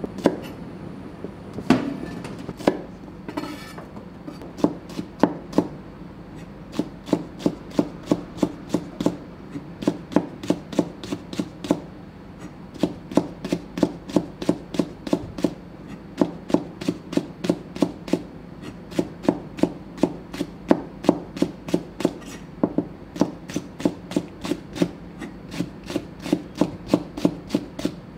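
Chef's knife slicing green chilli peppers into thin rings on a plastic cutting board: a few scattered taps at first, then from about four seconds in a steady rhythm of roughly three knife knocks a second.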